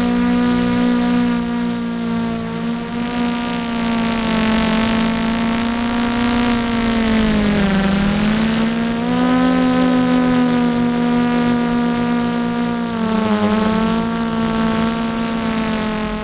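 Y6 tricopter's six brushless motors and propellers running in flight: a steady multi-tone buzz that dips in pitch and comes back up about halfway through, and again near the end, as the motor speed changes.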